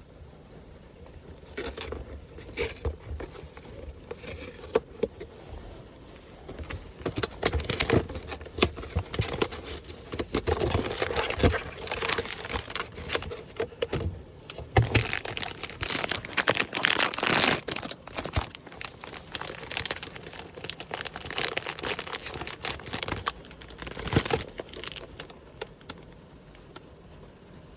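Blind-box toy packaging being opened by hand: irregular crinkling of plastic wrapping and tearing of paper or cardboard, busiest in the middle and tailing off near the end.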